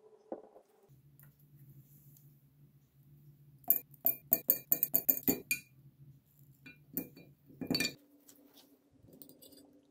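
A quick run of about ten sharp, ringing clinks of small hard objects knocking together, then two more clinks a little later.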